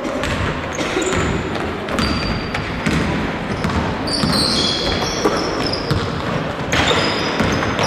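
A basketball being dribbled on a wooden gym floor, a series of sharp bounces, with sneakers squeaking in short high chirps as players run.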